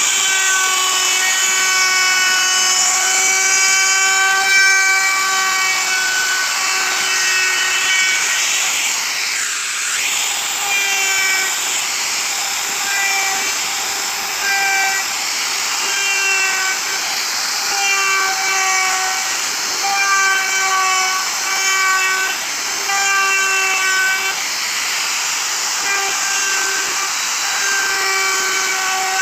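DongCheng plunge router running and cutting into a wooden panel: a steady high-pitched motor whine over a hiss of cutting. About ten seconds in the sound dips briefly, and after that the whine breaks off and on about once a second.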